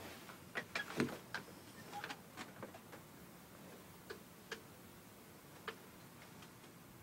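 Faint, irregular light clicks and taps, closely bunched in the first three seconds, then a few single ticks further apart.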